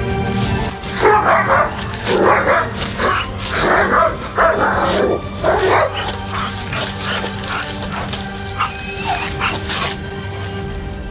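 German Shepherd barking in a rapid volley of about a dozen loud barks over five seconds, then fewer and fainter barks: reactive barking on the leash at another dog. Background music plays throughout.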